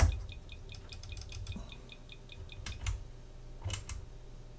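A sharp click, then a quick even run of light ticks, about six a second for some two seconds, then a few more single clicks, over a steady low hum.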